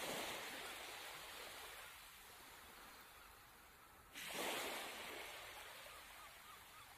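Small waves washing up onto a sandy beach: one wash fading away as it drains back, then another arriving suddenly about four seconds in and slowly fading.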